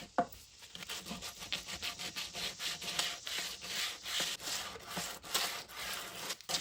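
Hand sanding on wood: quick back-and-forth scratchy strokes, about three or four a second, with a short knock about a quarter of a second in.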